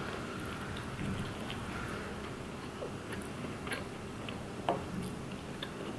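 A person biting into and chewing a large burrito: soft, irregular wet mouth clicks and smacks, with one sharper click about three-quarters of the way through.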